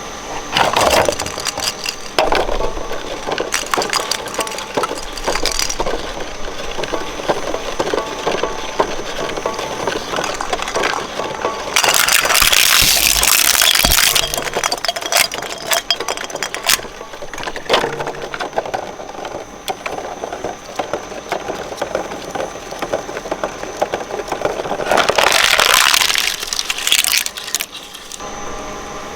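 Shredder crushing and cracking material fed into its blades: dense, irregular cracks, snaps and clinks. There are two louder hissing rushes, about two seconds each, near the middle and near the end.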